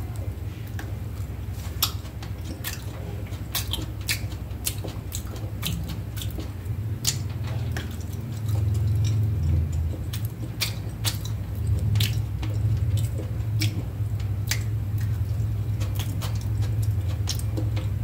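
Oil in a frying pan crackling and popping around frying eggs, with irregular sharp pops over a steady low hum.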